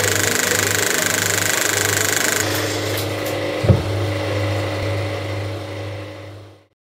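1959 National 35mm cinema projector running: a steady mechanical whirr and hum with a regular pulse. About two and a half seconds in the higher hiss drops away, a single sharp knock follows a second later, and the sound fades out near the end.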